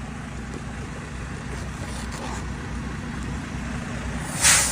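Semi truck's diesel engine idling with a steady low rumble, and a short loud hiss of air from its air brakes near the end.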